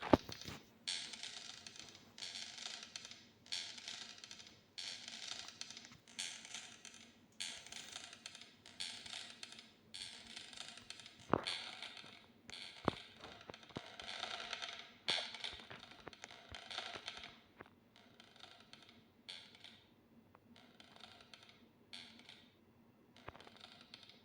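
Bells clanging in a steady rhythm, about one dull clang every half to two-thirds of a second, pausing briefly now and then, with two sharp clicks near the middle.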